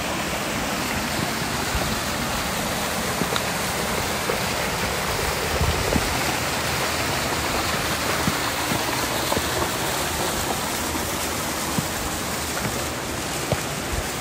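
Mountain stream rushing over granite boulders in small cascades: a steady, even rush of water, with a few faint knocks.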